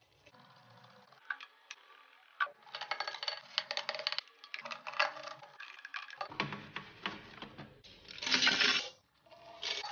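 A paintbrush scrubbing a wet metal stereo chassis in a ceramic basin: scratchy bristle strokes mixed with many small clicks and knocks of metal and plastic parts. A louder hissing burst lasting under a second comes near the end.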